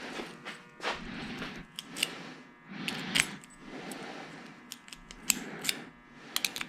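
A key ring jangling and a key clicking in and out of a newly fitted trunk lock cylinder as it is tried, in a series of sharp metallic clicks and ticks. The key goes in upside down because the lock cylinder has been installed upside down.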